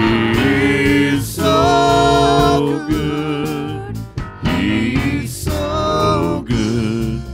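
Live gospel worship music: a small band accompanying several singers on a slow, sustained chorus.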